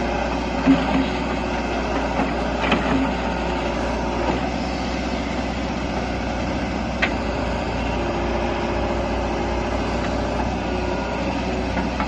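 JCB 3DX backhoe loader's diesel engine running steadily while it works its digging arm, with a few short sharp knocks from the bucket and dumped soil.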